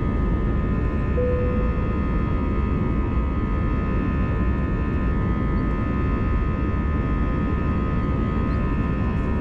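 Airbus A320-214's CFM56 turbofan engines at takeoff power during the initial climb, heard from the cabin: a steady low roar with several high, steady fan whines above it. A short single beep sounds about a second in.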